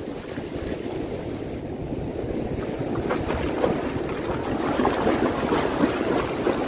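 Shallow surf washing and fizzing around a wading angler, with wind rumbling on the microphone; from about three seconds in, louder splashing of water churned up close by.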